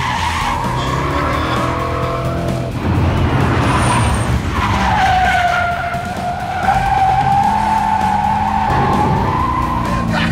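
Chevrolet Corvette Z06 drifting: its tyres squeal in a long wavering tone over the V8 engine's revving. The squeal breaks off for a couple of seconds a little before halfway, then comes back lower and holds to near the end.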